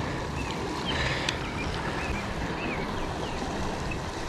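Steady rush of a flooded river's flowing water, with a few faint, short bird chirps and a single sharp click about a second in.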